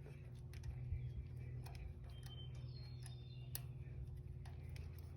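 Scattered light metallic clicks and taps of a wrench and loosened nut as the starter's power-cable terminal is unbolted, over a steady low hum.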